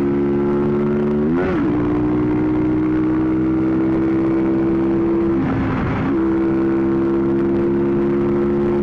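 2007 Honda CBR125's single-cylinder four-stroke engine running steadily under way. Twice the engine note breaks briefly and picks up again, as at a gear change, about one and a half seconds and six seconds in.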